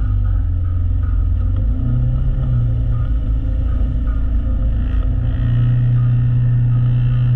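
Side-by-side UTV engine running while driving off-road, with a low rumble underneath. The engine note rises twice as the throttle opens, about two seconds in and again past the five-second mark.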